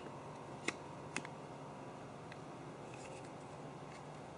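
Two light clicks about a second in, then a few fainter ticks, as a Samsung Galaxy S8 phone is handled and fitted into a slim magnetic phone case; otherwise low room tone.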